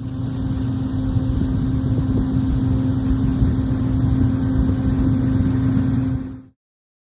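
Steady mechanical running noise, a low rumble with one constant hum, that cuts off abruptly about six and a half seconds in.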